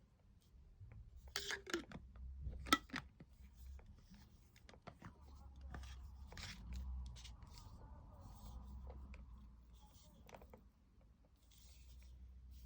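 Packaging being handled and opened: rustling and tearing, with scattered sharp clicks and knocks, the loudest a little under 3 seconds in.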